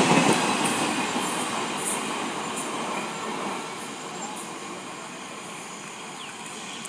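The tail end of a freight train of open wagons and its brake van passing at speed, steel wheels rumbling and clattering on the rails, with brief high squeaks recurring about once a second. The sound fades steadily as the train draws away.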